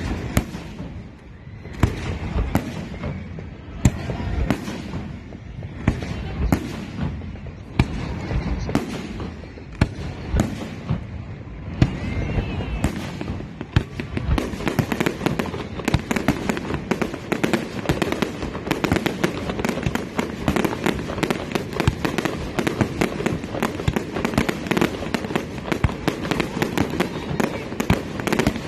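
Aerial fireworks going off: separate bangs every second or so, then from about halfway a dense, continuous crackle of many rapid pops.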